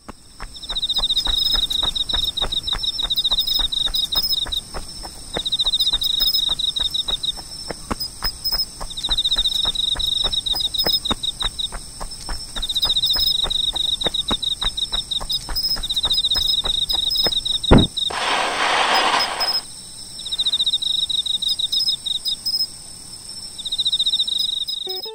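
Night insect chorus: a cricket-like pulsed trill in repeated phrases a couple of seconds long, over a steady high-pitched buzz of other insects, with a patter of running footsteps. About two-thirds of the way through, the footsteps stop, and a single thump is followed by a short rushing noise.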